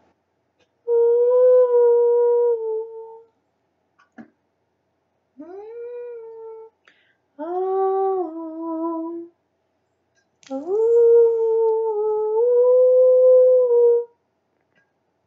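A woman's voice singing wordless, sustained notes with no accompaniment: four held phrases, each sliding up into its note. The last and longest is held for about three and a half seconds.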